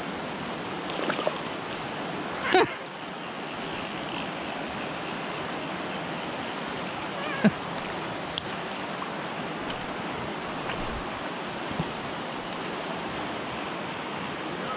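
Flood-swollen mountain trout creek rushing steadily in high water, with a couple of brief, sharper sounds about two and a half and seven and a half seconds in.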